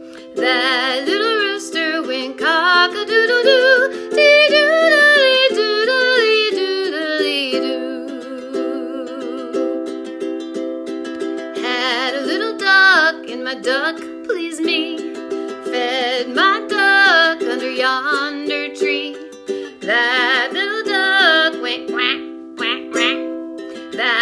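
A woman singing a children's folk song to her own ukulele strumming, the chords held steady under her voice.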